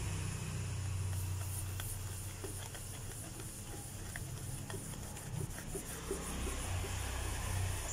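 Cloth rubbing and wiping over an embossed brass plate, a soft hiss with a few faint ticks, over a steady low hum.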